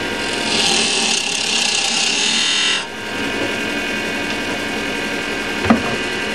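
Axminster wood lathe running while a turning tool cuts the spinning candlestick spindle: a loud hiss of cutting that stops a little under halfway through, leaving the steady hum of the lathe motor. A single sharp knock near the end.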